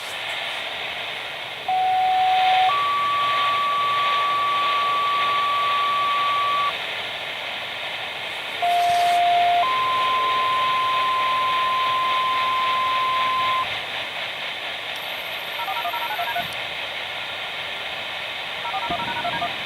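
Radio scanner receiving outdoor warning siren activation tones over a hissing channel: two two-tone pages, each a short lower tone about a second long followed by a higher tone held about four seconds. Two short bursts of touch-tone (DTMF) beeps follow near the end.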